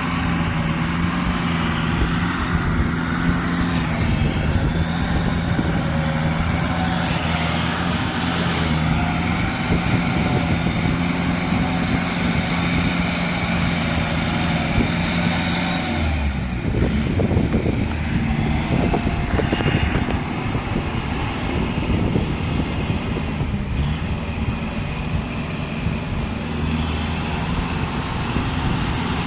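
Engine of a rice-field plowing machine running steadily under work; a little past the middle its note drops and wavers for several seconds, as under a change of load, then steadies again.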